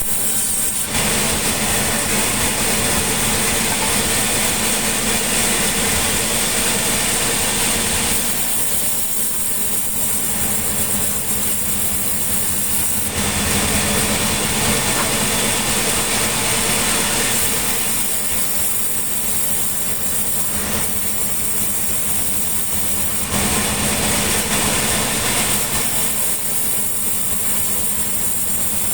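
Sawmill machinery running: an engine hums steadily, and three times a louder hissing noise comes in and lasts for several seconds, as the saw cuts through mahogany.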